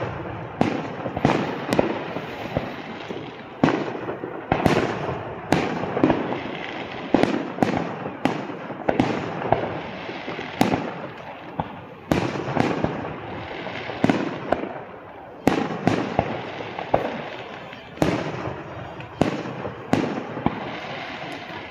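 Aerial firework shells bursting in steady succession, a sharp boom about once a second, each trailing off in an echoing rumble.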